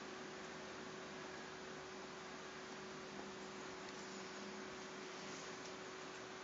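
Faint steady hum, one unchanging tone over a constant hiss: electrical and recording background noise.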